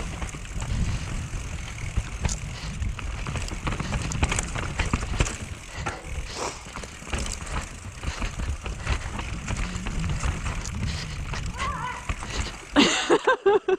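Mountain bike rattling and clattering over roots on a descent, with many sharp knocks from the frame and tyres over a steady low rumble, and a louder clatter near the end.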